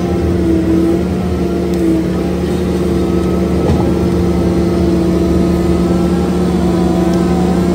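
Bobcat T86 compact track loader's diesel engine and hydraulic milling rotor head running steadily under load while grinding brush stumps into the soil. The pitch dips and recovers slightly as it works.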